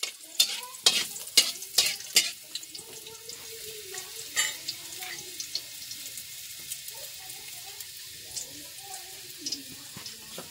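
A metal spatula scraping and clanking against a wok in quick strokes for the first two seconds, one more knock about four seconds in, then food frying with a faint steady sizzle.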